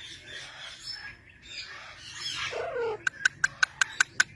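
A parrot vocalizing: a short falling call about two seconds in, then a quick run of sharp clicking beeps, about six a second, near the end.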